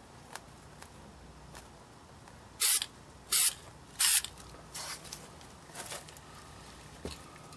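Three short bursts from an aerosol spray-paint can, each lasting a fraction of a second, coming about two-thirds of a second apart in the middle. They are followed by light rustling as the paint mesh is handled and lifted.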